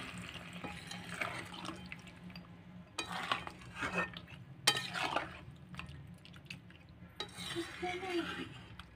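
Water poured from a steel mug into a kadai of browned duck meat, then a spatula stirring the meat and water, with scraping strokes and a sharp knock against the pan about halfway through.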